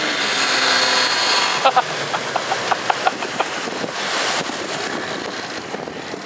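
Mercury outboard motor running under throttle, pushing a small aluminium jon boat, with heavy wind and water noise. A quick run of short sharp blips comes between about one and a half and three and a half seconds in.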